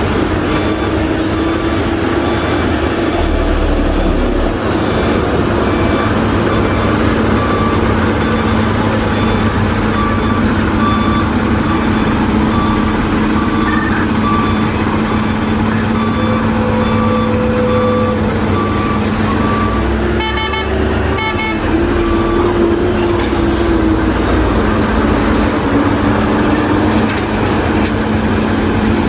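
Heavy diesel machinery running steadily, with a back-up alarm beeping over and over until about twenty-two seconds in. Around twenty seconds in there is also a short burst of rapid, higher pulses.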